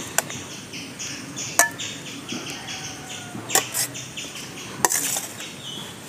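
Small birds chirping repeatedly in the background, with about four sharp clinks and knocks of kitchen utensils, one ringing briefly.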